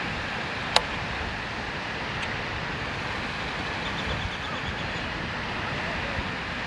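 Steady outdoor background noise, like distant traffic and wind, with a sharp click about a second in, a fainter click a little later, and a quick run of faint high ticks around four seconds in.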